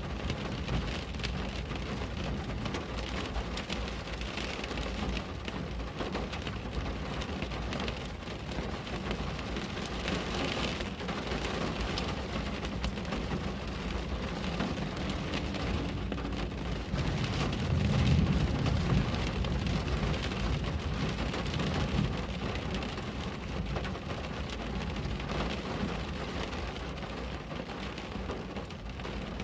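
Steady rain falling on a window. A low rumble swells and fades about two-thirds of the way through.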